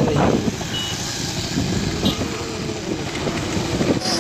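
Wind buffeting the microphone on a moving two-wheeler, over the vehicle's running and road noise.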